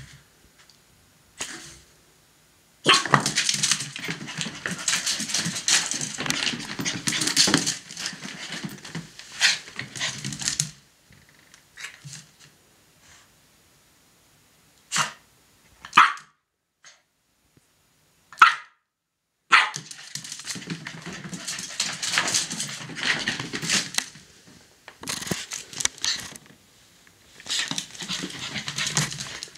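Shiba Inu puppy scrabbling and digging at a fleece dog bed and wooden floor, claws and fabric scratching in two long spells, with three short barks in the quieter stretch between them.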